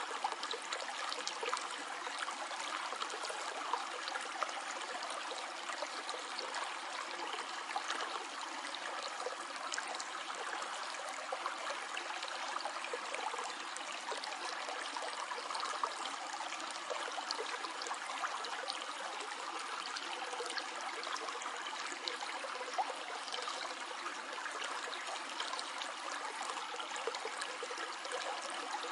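A stream flowing steadily: a continuous rush of water with many small splashes and gurgles.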